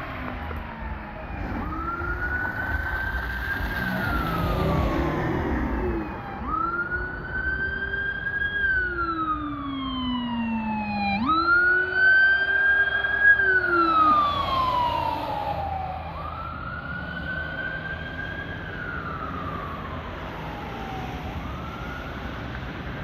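Fire truck siren on a wail, rising and falling slowly about every five seconds, with a Howler low-frequency siren tone following it far lower in pitch through roughly the first two-thirds. It is loudest a little past the middle as the truck passes, over steady traffic noise on the slushy road.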